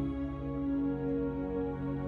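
Soft new-age ambient background music with long held notes that shift slowly in pitch.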